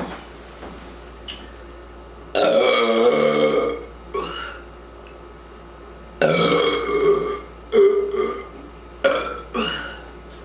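Loud burps from drinking fizzy root beer: one long, drawn-out burp about two seconds in, then a string of four or five shorter burps from about six seconds on.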